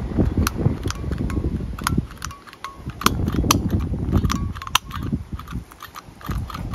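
An old-style electrical light switch clicked over and over by hand. The snaps come irregularly, over a low rumble.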